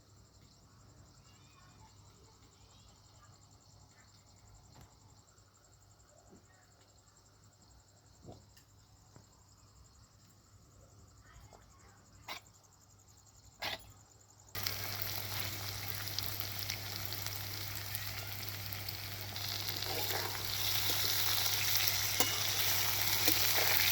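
Low room tone with a few faint clicks, then a steady hiss that starts abruptly about fifteen seconds in and grows louder about five seconds later.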